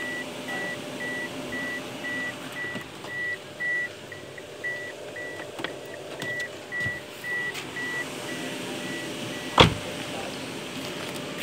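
A Suzuki A-Star's warning chime beeping in a steady run of short high tones while the driver's door is open, over rustling as the floor mat is handled. Near the end the beeping stops and the car door slams shut with a loud thump.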